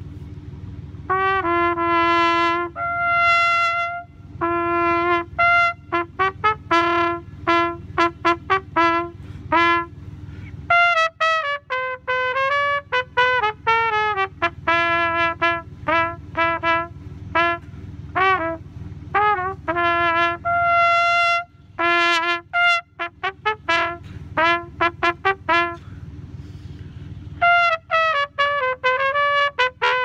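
A trumpet playing a tune: a string of short tongued notes mixed with a few held ones, starting about a second in, with brief breaks between phrases.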